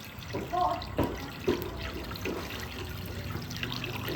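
Water running and splashing, with irregular short spatters.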